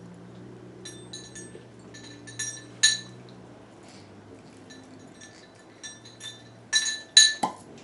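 Light glass clinks and taps from a champagne bottle and a cocktail glass being handled. The bottle is being worked open at the neck. There are scattered small clinks, a sharper one about three seconds in, and a quick cluster near the end.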